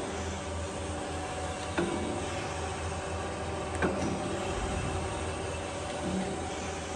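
Freeport SGS-1632AHD hydraulic surface grinder running its auto cycle: a steady hum from the hydraulic unit and motors, with two light knocks about two seconds apart as the table traverses.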